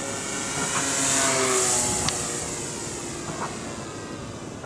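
Electric motor and propeller of a large foam RC Cessna whining as it flies past, swelling about a second in and then falling in pitch as it passes.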